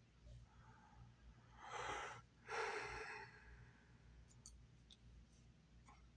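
A man's sigh, a short breath in and then a longer breath out about two seconds in, followed by a few faint clicks over a low steady hum.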